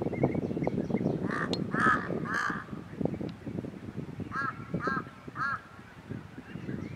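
European bee-eaters calling: two runs of three short rolling calls, the first about a second in and the second about four and a half seconds in. Wind noise on the microphone rumbles underneath, heaviest early on.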